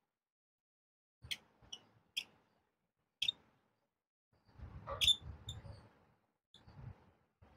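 Handling of a metal torch as its head is screwed onto the body: about five sharp little clicks of metal parts between one and five seconds in, with a rubbing scrape of the threads and hands around five seconds.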